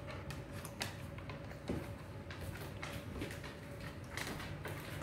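Quiet room tone: a steady low hum with a faint steady tone and scattered small clicks.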